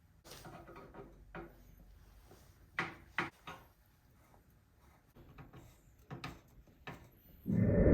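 Scattered clicks and knocks of computer parts and the case being handled during assembly, ending in a louder, muffled thump near the end.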